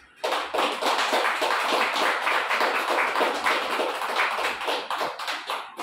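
A small group of people applauding by hand, with fast, uneven claps. It starts abruptly a moment in and stops just before the end.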